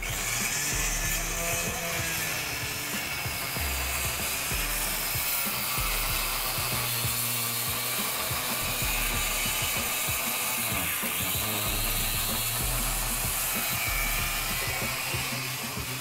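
Background music with a bass line stepping from note to note every second or two, over steady rasping power-tool noise.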